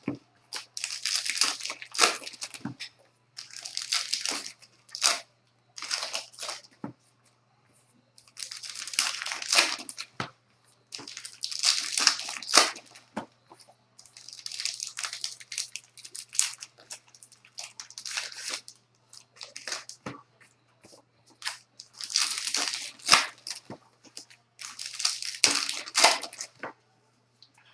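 Trading-card pack wrappers being torn open and crinkled: a run of crackly rustling bursts, each a second or two long, with short pauses between them.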